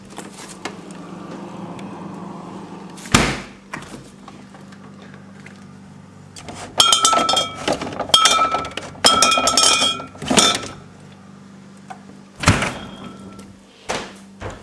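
Household clatter over a steady low hum: a loud knock about three seconds in, then a few seconds of rattling clinks of hard objects with a brief ringing in them, and two more knocks near the end.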